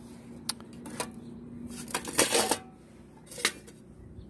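Swedish military mess kit being handled and taken apart: a few short metal clicks and clanks, with a louder scraping rattle about two seconds in as the black perforated stove windscreen is lifted off the pot.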